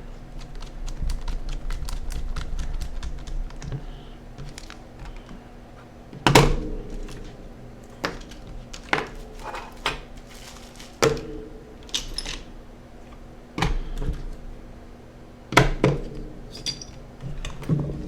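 Small parts and tools being handled on a workbench while a handheld computer is put back together: a quick run of light clicks over the first few seconds, then sharp clacks of hard objects set down or knocked, one every second or two, with a short ring after each.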